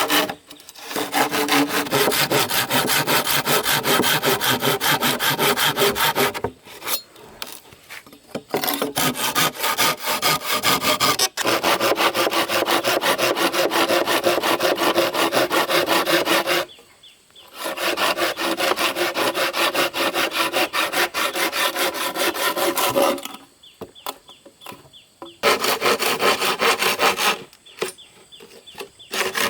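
Hand saw cutting through bamboo in quick, even back-and-forth strokes. It goes in several long stretches, broken by short pauses.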